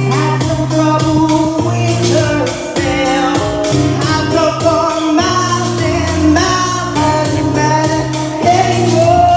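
Karaoke: a pop backing track with a steady beat and a bass line, and a singer's voice over it through a PA.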